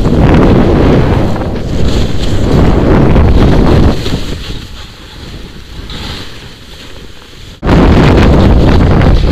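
Wind buffeting a helmet-mounted action camera's microphone as a skier goes down through powder, a loud rushing noise. It eases about four seconds in, cuts out for an instant near the end, then returns loud.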